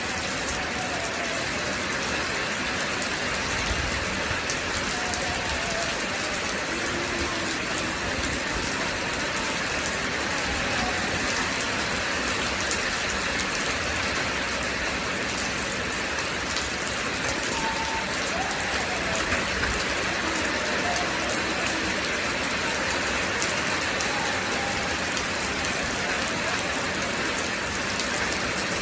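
Steady rain falling, an even hiss of many drops with no break.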